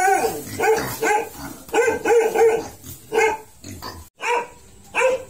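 A dog barking repeatedly in short barks.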